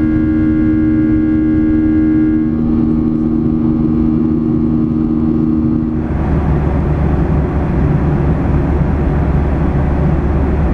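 Boeing 737 jet engines and cabin noise heard from a window seat in climb: a steady drone with a few held tones. About six seconds in it changes abruptly to an even rushing noise of engines and airflow at cruise.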